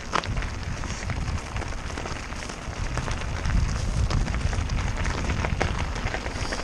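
Mountain bike descending a rocky, loose dirt trail at speed: tyres crunching and crackling over gravel and stones, with many sharp clicks and knocks from the bike rattling. Wind buffets the bike-mounted microphone, giving a steady low rumble.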